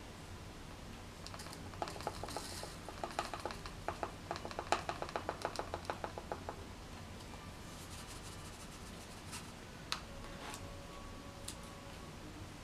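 Pink lemonade drink-mix powder poured and shaken from a plastic canister into a plastic bowl: a quick run of light ticks and pattering, about eight a second, for a few seconds, then a single click.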